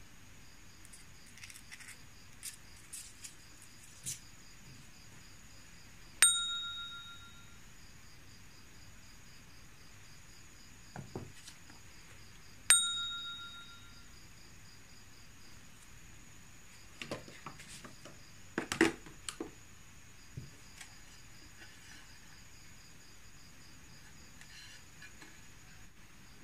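A bright bell-like ding sounds twice, about six and a half seconds apart, each ringing out for about a second. Around eighteen seconds in there is a short stretch of rustling and knocking as things are handled.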